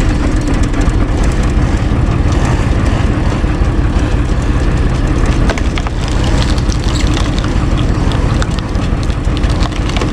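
Universal U445 DT tractor's diesel engine running steadily under load, driving a cone log splitter as a log is pressed onto it. From about halfway, the cone biting into the wood adds sharp cracks and creaks.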